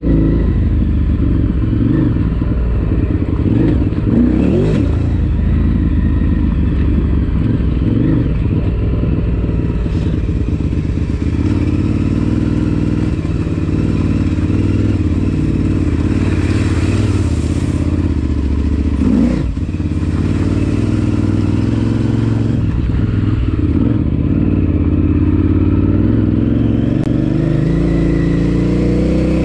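KTM 950 Super Enduro's V-twin engine running under load on a dirt trail, its pitch rising and falling with the throttle and climbing steadily near the end. A single knock about two-thirds of the way through.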